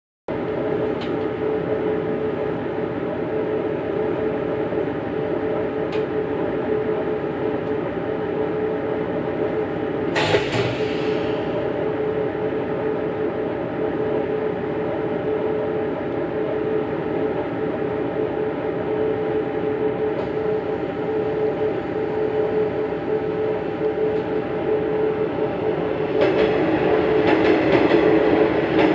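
Steady drone of a diesel railcar idling, heard from its rear cab, with a brief hiss about ten seconds in. From about 26 seconds the sound grows louder as a second diesel railcar, a Noto Railway NT300, passes close by on the adjacent track.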